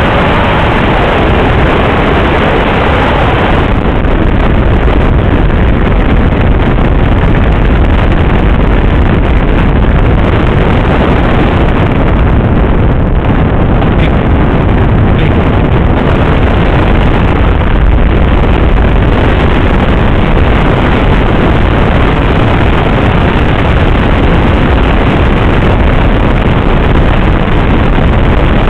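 Loud steady rush of wind and road noise from a car driving at speed, with wind buffeting the microphone.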